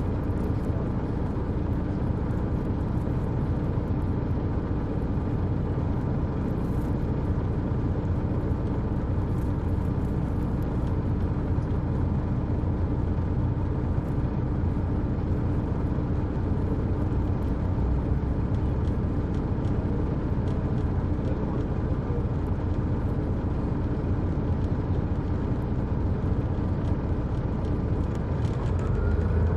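Detroit Diesel Series 60 diesel engine of an MCI D4000 coach, heard inside the cabin from the rear seats, running with a steady drone.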